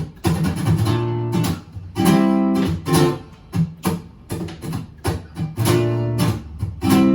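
Acoustic guitar strummed in a steady rhythmic pattern of chords, with some chords held between the faster strokes.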